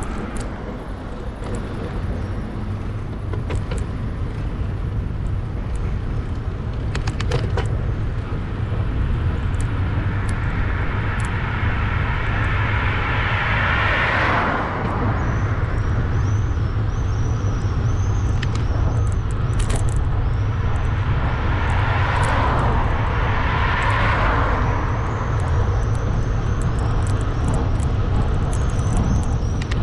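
Steady low wind rumble and road noise on a bicycle's handlebar-mounted camera while riding, with a car passing in the opposite lane, swelling and fading, about halfway through and another about two-thirds of the way through.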